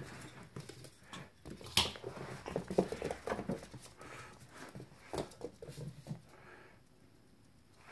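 Two Toy Fox Terrier puppies play-fighting on a laminate floor: scuffling paws and small puppy noises, with sharp knocks about two and three seconds in and again near five seconds. The noise dies down over the last second.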